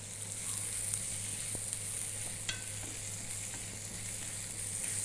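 Minced garlic sizzling in hot oil in a frying pan as it is fried until golden, stirred with chopsticks; a steady hiss with a few light clicks.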